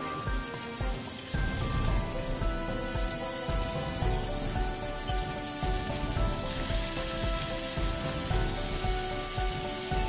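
Cubes of pork belly sizzling steadily in a hot stainless-steel frying pan as they are turned with tongs, with soft background music playing over it.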